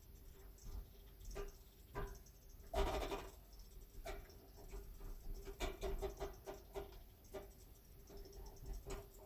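Bosch washing machine heard from inside its drum at the end of a drain cycle: a faint steady hum with irregular clicks, taps and rattles, the loudest rattling about three seconds in.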